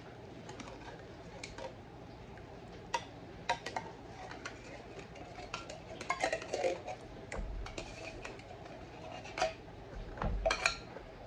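Metal spoon scraping and clinking inside an open tin can while scooping out thick condensed cream of mushroom soup, with scattered light knocks against the can and bowl. The clatter is louder about six seconds in and again near the end.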